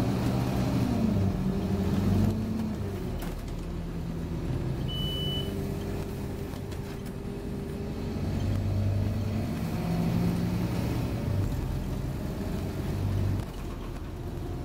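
Scania OmniCity double-decker bus's diesel engine and drivetrain heard from inside the lower deck while the bus drives. The engine pitch rises over the first two seconds and then drops, and the engine picks up again later and eases off near the end. A single short high beep sounds about five seconds in.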